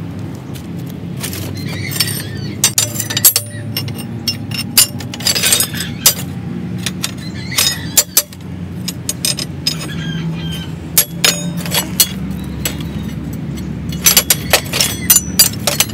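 Rusty scrap steel rods and pipes clinking and clattering against one another in a scrap pile, in irregular clusters of sharp metallic clinks. A steady low hum runs underneath.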